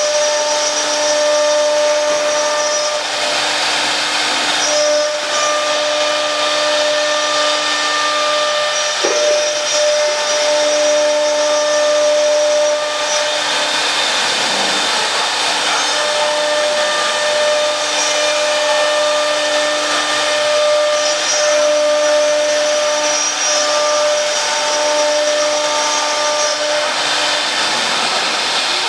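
Three-spindle panel furniture CNC router cutting a board: a loud, steady rushing noise of the spindles and cutters working the board, with a high whine whose pitches drop out and return every few seconds.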